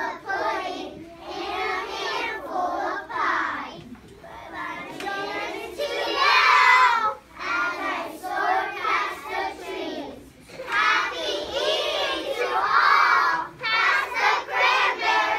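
A group of young children singing a song together, in phrases separated by short breaks.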